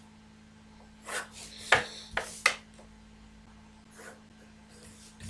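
Pencil scratching on drawing paper and a plastic set square being slid and set down against a wooden ruler: a few short scratches with two sharp clicks about two seconds in, and quiet between.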